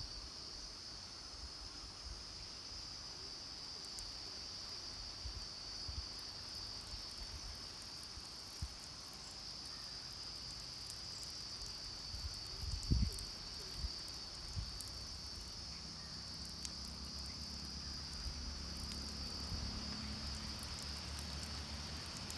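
A steady, high-pitched chorus of insects, faint. It is broken by a few low thumps about halfway through, and a low rumble grows under it in the last few seconds.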